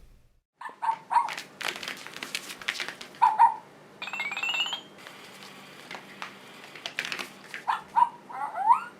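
Cat making short defensive growly meows and yowls, some sliding upward in pitch near the end, between short bursts of hissing and spitting. These are the sounds it makes when its paws or belly are touched during rough play.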